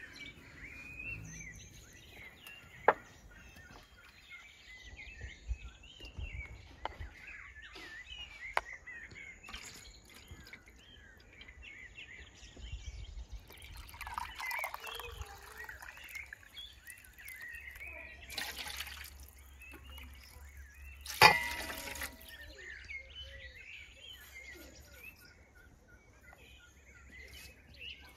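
Water poured from a plastic jug into a drinking glass and tipped into a metal bowl of milk: trickling pours and one short, loud splash about two-thirds of the way through. Birds chirp throughout, and there are two sharp knocks in the first nine seconds.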